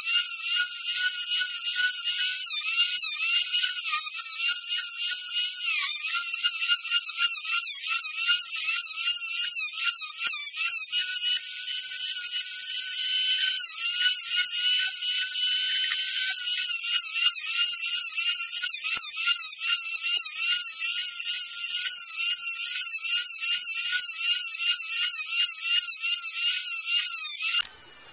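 Small high-speed power tool running with a steady high whine; its pitch dips and wavers as it bites into the work. It is switched off near the end and stops abruptly.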